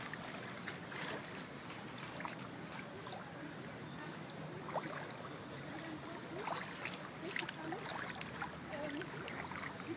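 Shallow water rippling and trickling along a bank, a steady wash of water sound with many small lapping splashes.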